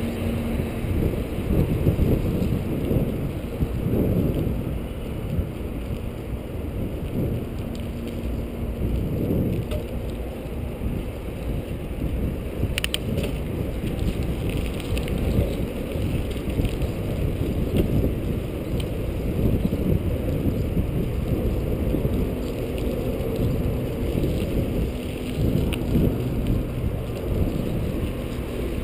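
Bicycle riding along an asphalt path: a steady low rumble of tyre and wind noise on the handlebar camera's microphone, swelling and easing with the gusts. One sharp click about thirteen seconds in.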